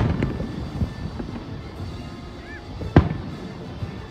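Aerial firework shells bursting, with a sharp bang right at the start and another about three seconds in, and smaller pops and a low rumble between them.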